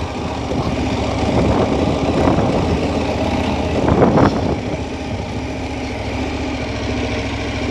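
KTM 1290 Super Adventure's V-twin engine running steadily, briefly louder about four seconds in.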